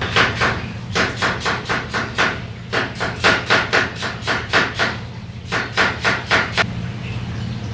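Metal ladle knocking and clinking against the tteokbokki pan and a small bowl as food is scooped out, a quick run of about four knocks a second that pauses briefly and stops near the end. A steady low hum lies underneath.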